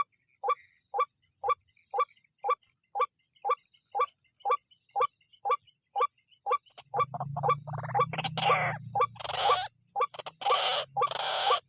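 White-breasted waterhen calling: a steady series of short, clipped notes about two a second. About seven seconds in, the calling turns louder and more rapid, with a low hum underneath.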